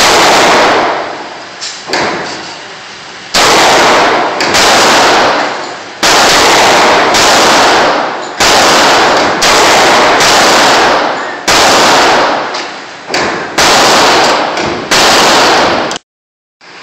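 .38 Special revolver shots, about one a second, each a loud crack followed by a long echoing decay in the enclosed range, with fainter shots in between. The audio drops out briefly near the end.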